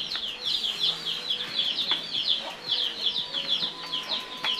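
Rapid, repeated high chirps from a bird, several a second without a break.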